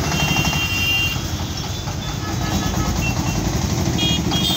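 Mixed road traffic of trucks, auto-rickshaws and motorcycles, engines running as they move off, with a short high horn toot at the start and more brief toots near the end.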